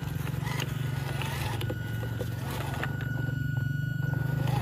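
Small brushed 180-size electric motor and stock gearbox of a WPL C54 RC crawler running, a steady low hum with scattered clicks. A thin steady whine joins it from about two seconds in until near the end.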